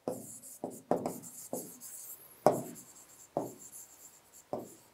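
Pen writing on an interactive touchscreen board: about eight short taps and strokes at uneven intervals, each starting sharply and fading quickly.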